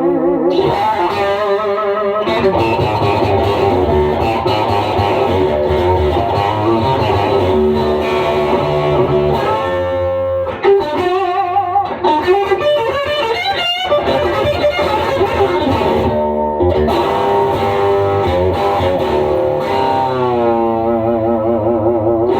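Electric guitar, a Fender Stratocaster, played through a 1979 Fender 75 tube amp with a single 15-inch Electro-Voice speaker: a continuous lead passage of held notes with bends and vibrato.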